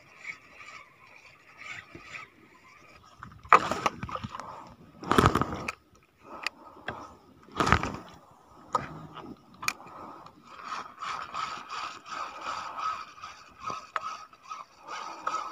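A 2000-size spinning reel being cranked to retrieve a lure, its gears giving a fast, steady ratcheting whir. In the middle come three loud thumps and rustles of handling, with a few sharp clicks.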